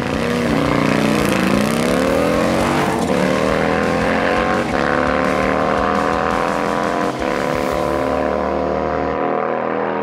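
Harley-Davidson touring motorcycle's V-twin under hard acceleration down a drag strip, its pitch dipping once near the start, then climbing for a few seconds and levelling off at high revs.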